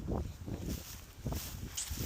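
Footsteps of someone walking, about two steps a second, over a low, uneven rumble.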